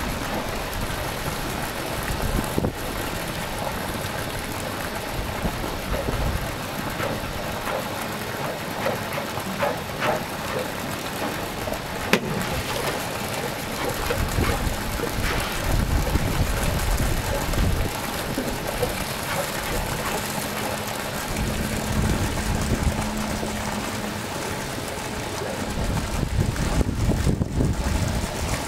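Wind buffeting the microphone in gusts over a steady outdoor background noise, with one sharp click about twelve seconds in.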